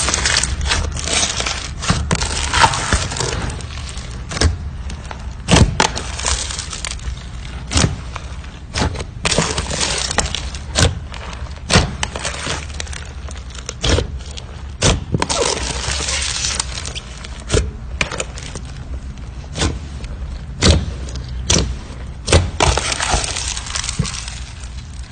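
Slime being squeezed and kneaded by hand, giving irregular sharp pops and clicks over a soft wet crackling.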